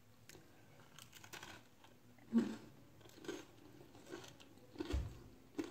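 Baked chicken and cheese bread being pulled apart by hand: a faint series of short, soft crackles and rustles from the crust and crumb, the loudest a little over two seconds in, with a low bump near the end.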